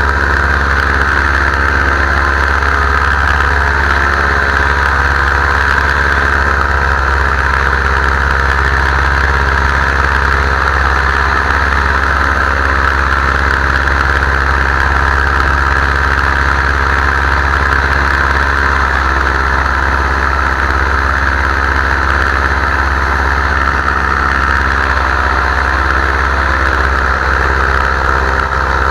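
Paramotor engine and propeller running at a steady throttle in flight, a loud, constant drone that holds one pitch.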